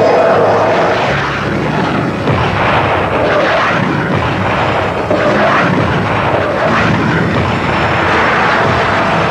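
Military jet aircraft flying over in an air strike, a steady loud rush of engine noise with a few sharp blasts mixed in.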